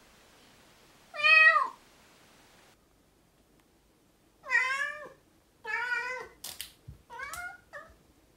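Siamese kitten meowing, high-pitched: one loud meow about a second in, then a run of four more, the last one short. A couple of sharp clicks come between the later meows.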